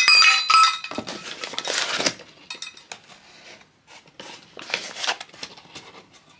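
Kitchen utensils and a measuring cup clinking and scraping against a mixing bowl while flour is measured out: a few ringing clinks at the start, a scraping rustle about a second in, then lighter scattered knocks.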